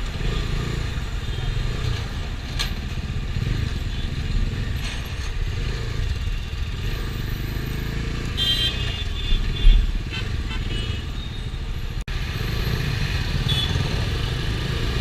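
Bajaj Dominar 250's single-cylinder engine running steadily under way, heard from the riding motorcycle. There is a low thump about ten seconds in, and a few short high beeps between eight and eleven seconds.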